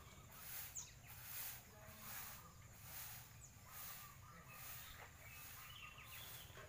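Faint broom strokes sweeping in a steady rhythm, a soft swish roughly every second, with birds chirping faintly in the background.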